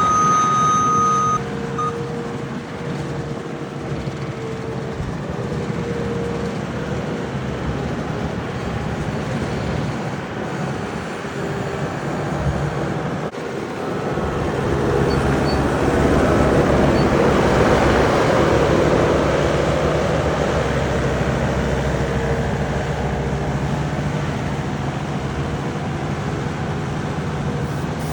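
A farm machine's engine running steadily and getting louder partway through, with a beep about a second long at the start and a short second blip just after it.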